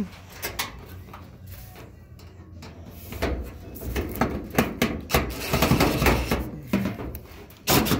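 Clicks, knocks and rasping of a screw being driven into a dryer's sheet-metal cabinet with a long-shafted driver, busiest in the second half.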